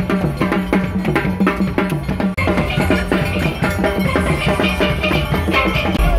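Steel band playing: massed steel pans over a drum kit, with a stepping bass-pan line and a fast, even beat. The sound changes abruptly a little over two seconds in, to brighter, higher pan notes.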